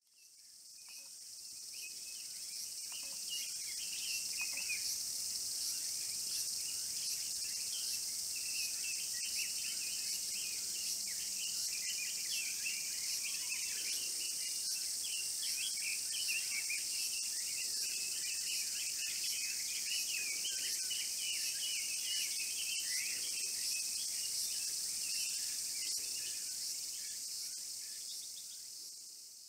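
A steady high-pitched insect chorus, with a flock of red-billed leiothrix giving quick, short chattering calls over it. The calls are thickest in the middle stretch. The audio fades in at the start and out at the end.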